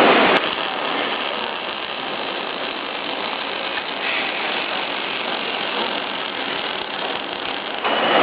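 Steady, noisy machine sound with no clear pitch. It cuts in abruptly about half a second in and changes abruptly just before the end.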